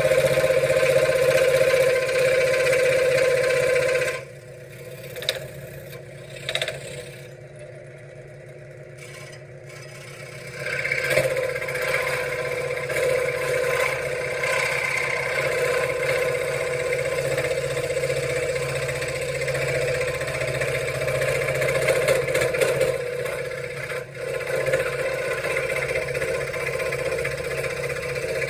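Benchtop scroll saw running with a steady buzz as its blade cuts wood. The sound drops away about four seconds in, with a couple of short knocks while it is quiet, and the saw starts up again about ten seconds in.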